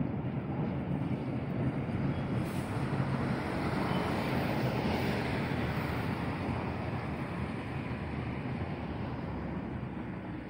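Freight train of tank wagons rolling past, a steady rumble of wheels on the rails that fades a little near the end.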